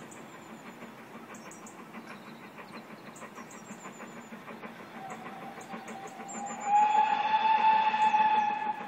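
Whistle of the GWR Castle-class 4-6-0 steam locomotive Earl of Mount Edgcumbe, one long blast. It comes in faintly about five seconds in, turns loud about two seconds later and eases off near the end. A steady rumble of the train runs underneath.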